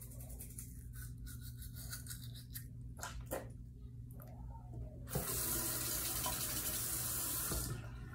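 Bathroom sink tap turned on, water running into the basin for about three seconds, then turned off. A few light clicks and knocks come before it.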